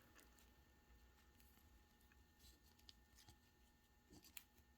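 Near silence with a few faint clicks and light rustles of trading cards being handled and sorted.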